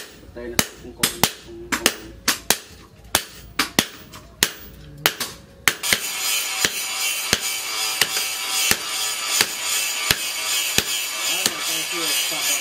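Hand hammer striking a red-hot leaf-spring steel blade on a steel post anvil: a quick run of sharp blows, about two or three a second. A bit under halfway through a steady hiss comes in underneath, and the blows go on more slowly, about one every two-thirds of a second.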